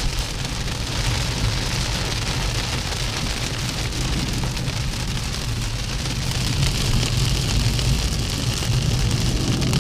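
Heavy rain beating steadily on a car's roof and windscreen, heard from inside the cabin, over the low hum of the car driving through the flooded road.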